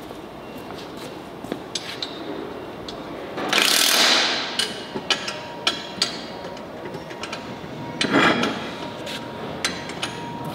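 A wheel and tire being handled and fitted onto a rear axle's hub: scattered metallic clicks and knocks, with two louder bursts of noise, one about three and a half seconds in and a shorter one about eight seconds in.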